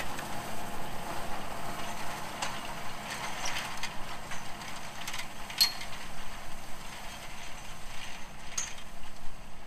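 Farm machinery working in the hay field, heard as a steady mechanical clatter with light ticks and clicks scattered through it.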